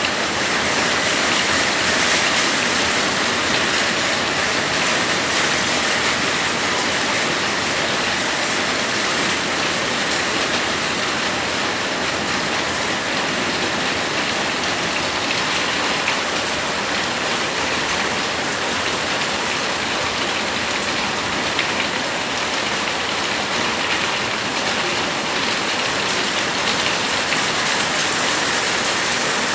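Heavy rain pouring down steadily in a rainstorm: a dense, even hiss that does not let up.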